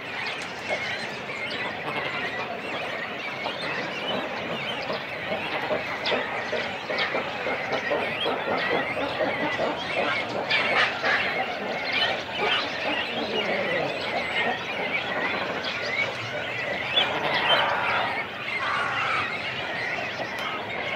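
Cormorant nesting colony at close range: a dense, continuous chatter of calls from chicks and adults on the nest, with other birds calling behind. The calling swells louder about halfway through and again near the end.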